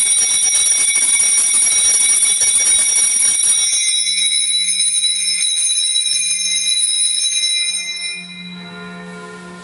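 Altar bells (Sanctus bells) rung without a break at the elevation of the consecrated host, a bright high-pitched jangle of several tones that fades out about eight seconds in. A deeper, steady tone comes in about four seconds in and carries on.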